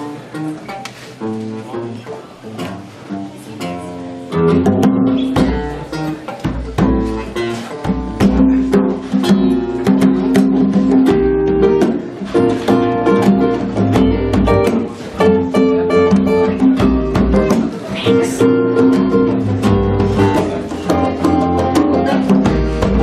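Two acoustic guitars, a nylon-string classical and a steel-string, playing a plucked instrumental passage. About four seconds in the music grows louder and a hand drum adds a steady low beat.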